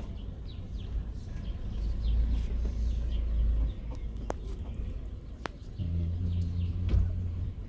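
Low vehicle rumble, with a steady engine hum coming in about six seconds in; faint bird chirps and two sharp clicks are heard over it.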